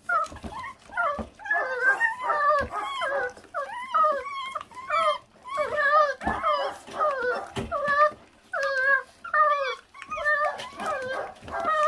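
Several month-old puppies whining and yelping without pause in short, wavering calls as they squabble over raw meat, with short clicks and knocks from gnawing on meat and bone.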